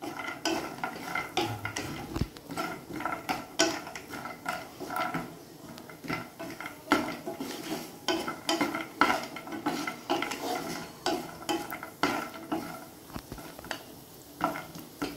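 Wooden spatula stirring cashews and almonds around a nonstick frying pan as they lightly roast in a little oil: repeated irregular clacks and scrapes of spatula and nuts against the pan.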